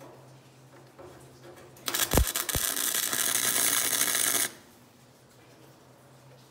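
Wire-feed welder laying a short weld on thin sheet-steel fender panels. About two seconds in, a loud crackling sizzle starts with a few sharp pops, holds for about two and a half seconds, then cuts off sharply.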